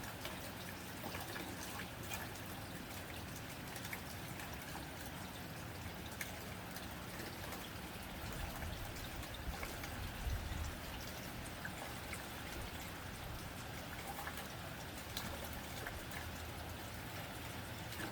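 Steady rain pattering on a tin roof: an even hiss dotted with many small drop ticks, with a few heavier low thuds about ten seconds in.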